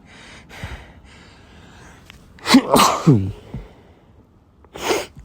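A person sneezing once, an allergic hay-fever sneeze brought on by pollen: a few breathy inhales build up, then one loud voiced sneeze about two and a half seconds in. A short sharp breath follows near the end.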